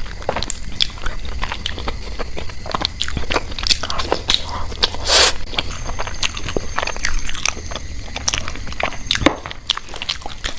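A person biting and chewing food close to an ASMR microphone: a rapid, irregular run of crunchy bites and chewing clicks with no talking.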